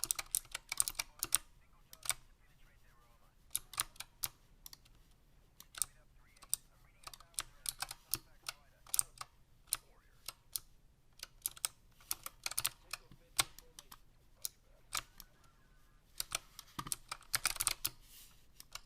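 Keys of a Razer Huntsman Mini gaming keyboard with optical switches being typed on. A quick run of keystrokes comes at the start, then slower scattered presses, then another fast flurry near the end.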